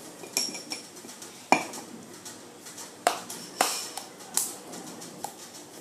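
A spoon clinking and knocking against a cup as ingredients are put in: about six separate sharp clinks, the loudest about a second and a half in.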